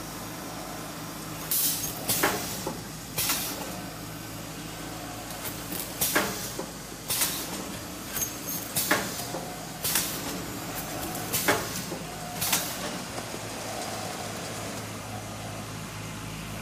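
Automatic heat-shrink film packaging machine running: a steady motor hum with sharp mechanical clacks every second or two.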